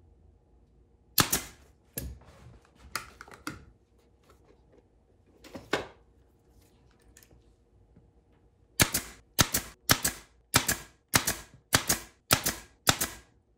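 Senco pneumatic brad nailer firing brads through a thin ring into a plywood base. A few single shots are spaced a second or so apart early on. Near the end comes a steady run of about eight sharp shots, a little under two a second.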